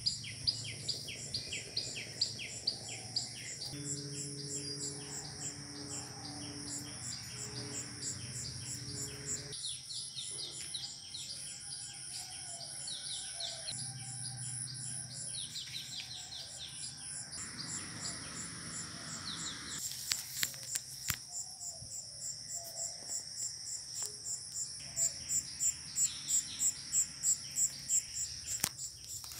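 Outdoor garden ambience: insects keep up a steady high, pulsing chirr, while birds chirp over it. The pulsing grows louder near the end.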